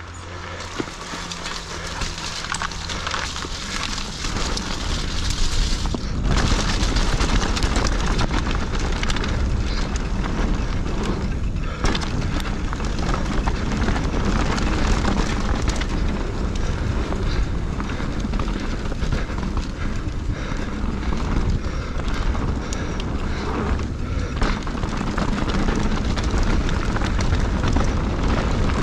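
Mountain bike riding fast down a loose gravel and rock trail: wind buffeting the camera microphone over the crunch and rattle of the tyres and bike. It grows louder over the first several seconds as the bike gathers speed, with a few sharp knocks from bumps.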